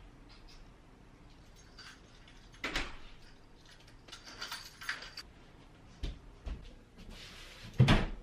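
Household handling noises: a series of short knocks and clinks, with a metallic jingle about four seconds in and a loud thump near the end.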